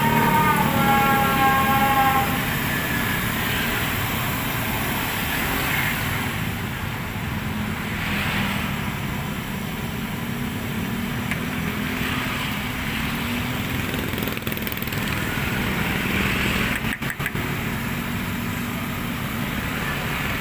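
Batter-coated banana fritters deep-frying in a wok of hot oil: a steady sizzle, with motor traffic running underneath.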